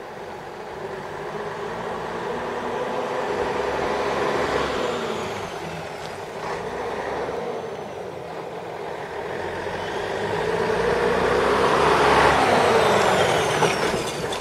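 1966 Scania-Vabis LS 76 lorry's 11-litre turbocharged diesel engine running as the truck drives around the yard. It swells twice and is loudest as the truck passes close by near the end, with a high whine that drops in pitch.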